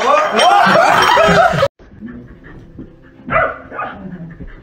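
A dog yelping and whimpering in quick, high, rising-and-falling cries for about a second and a half, cutting off suddenly. Quieter scattered sounds follow.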